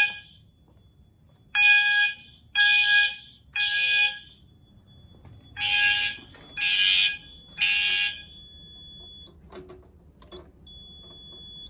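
Fire alarm horn, a System Sensor multi-tone horn set to an 800 Hz tone, sounding the temporal-three evacuation pattern: three short blasts, a pause, three more, then it stops about eight seconds in.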